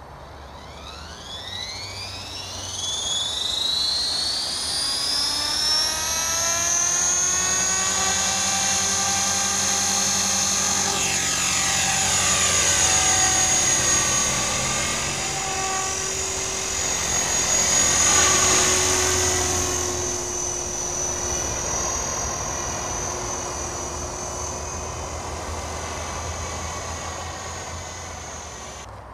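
Align T-Rex 450 XL electric RC helicopter spooling up from the ground, its motor and rotor whine rising steeply in pitch over the first few seconds. It then flies with a steady high whine that swoops up and down in pitch twice as it manoeuvres and passes, growing fainter near the end.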